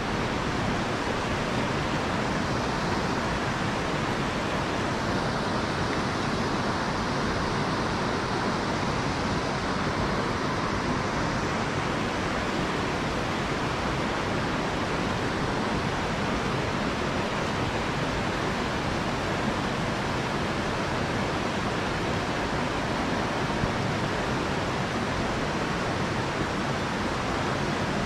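Mountain stream water rushing over rocks: a steady, even rush that holds at one level throughout.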